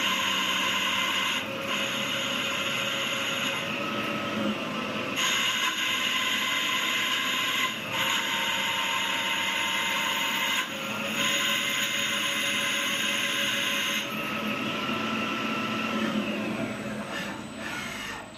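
Small CNC lathe running a job in aluminium: a steady mechanical whine in several tones that shifts or breaks off every one to three seconds, then fades near the end.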